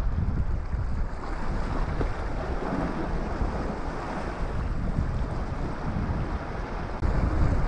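Wind buffeting the microphone in uneven gusts, over the wash of small waves against the rock wall.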